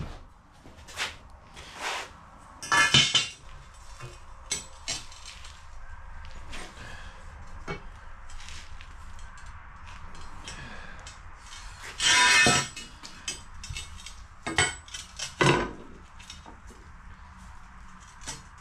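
Irregular metal clanks and knocks as steel pieces are handled and set down, with louder clatters about three seconds in, a longer one about twelve seconds in, and another near fifteen seconds.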